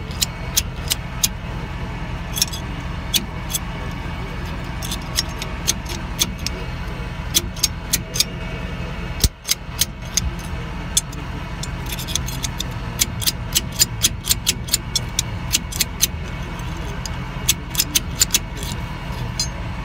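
Irregular sharp metal clinks and taps as a homemade slide-hammer puller, made from a steel shelf bracket, is worked back and forth to pull the lock ring out of a rear differential, with one louder knock about nine seconds in. A steady low hum runs underneath.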